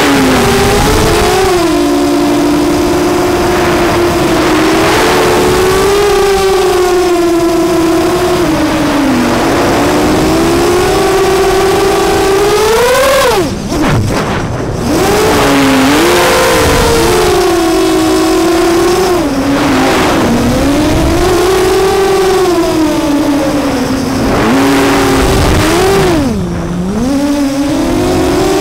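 FPV racing quadcopter's brushless motors (Emax 2208 2000KV spinning 6045 props) whining, the pitch rising and falling with throttle. Twice the throttle is cut briefly, about halfway through and near the end, and the whine drops away then surges back.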